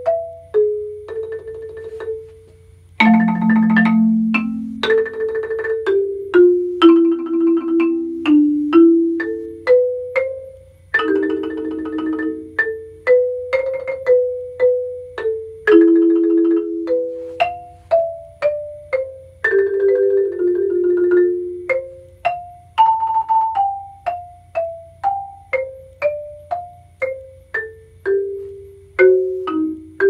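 Marimba played with mallets: a slow, singing melody of single struck notes that ring and fade. Rolled chords are held three times, about three, eleven and twenty seconds in, the first one low in the instrument's range.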